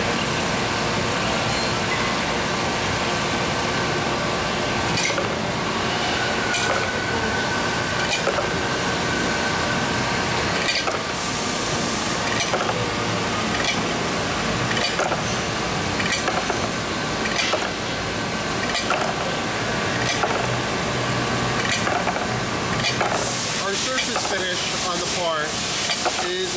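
Royal Master TG-12x4 centerless grinder thrufeed grinding carbide parts on a diamond wheel: a steady grinding hiss mixed with splashing coolant and a faint steady whine. Sharp clicks come about every second and a half as the parts pass through.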